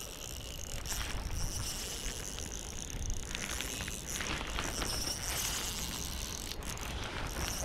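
Plastic rain poncho rustling close by and a Shimano Stradic CI4+ 2000 spinning reel being worked while a hooked bass is fought, with scattered clicks over a steady high insect chirring.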